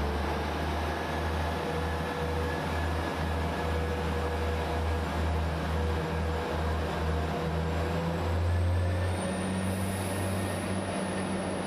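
Class 175 diesel multiple unit pulling away, its underfloor diesel engines running with a low, pulsing throb and a steady hum above it. About eight or nine seconds in, the engine note steps up and a faint high whine rises as the unit accelerates.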